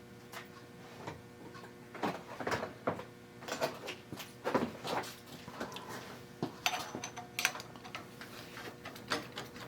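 Scattered light clicks and knocks of metal tools being picked up and handled, over a faint steady hum.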